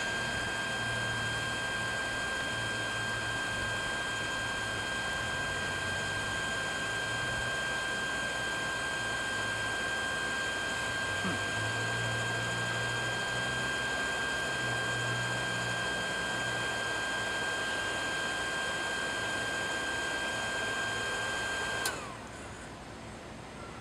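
Electric forge blower running steadily with a high whine as it blows air into the fire, then switched off with a click near the end, its noise dropping away quickly.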